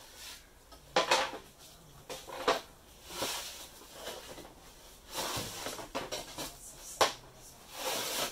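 Cut plywood bulkhead panels being shuffled and laid down on plywood sheets: sliding scrapes and several sharp wooden knocks, the loudest about a second in and about seven seconds in.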